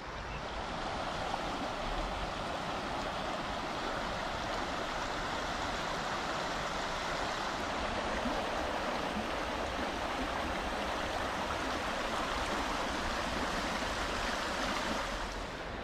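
Shallow river running over a stony riffle: a steady rush of flowing water.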